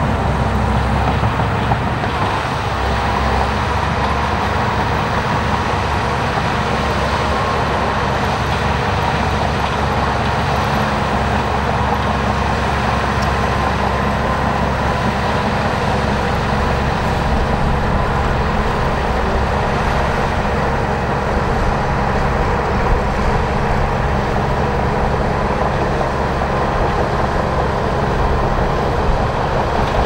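Shantui crawler bulldozer's diesel engine running steadily under load as the dozer pushes a blade full of soil.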